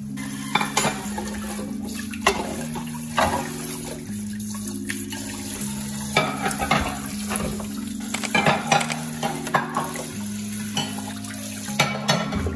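A kitchen tap running into a metal rice-cooker pot while a hand swirls and rinses rice in the water, with repeated splashes and light knocks against the pot. Background music plays underneath.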